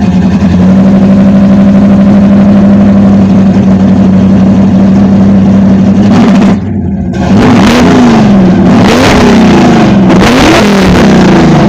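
Cammed Holden 5-litre V8 with a 286 cam and FiTech throttle-body injection running steadily, dropping off briefly about six and a half seconds in, then revved in about three short blips. The owner says it is still running way too rich.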